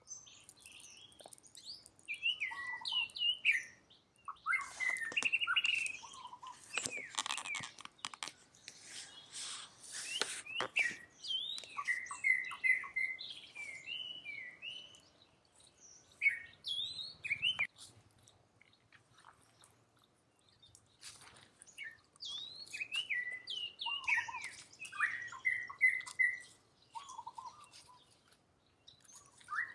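Clusters of short, high-pitched chirping calls, each sliding quickly up or down, with quiet gaps between the clusters. A stretch of rustling and crackling comes in a few seconds in.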